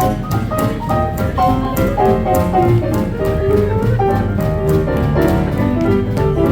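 Live small hot-jazz swing band playing an instrumental chorus: piano to the fore over upright bass and a steady beat.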